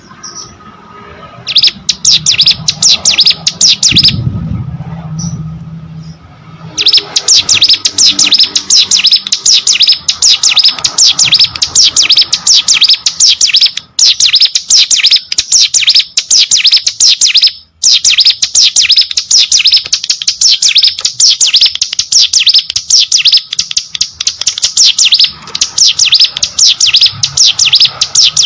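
Ciblek gunung (hill prinia) singing a very fast, high-pitched stream of repeated chipping notes in long unbroken runs. It sings briefly, pauses, and from about seven seconds in sings almost continuously.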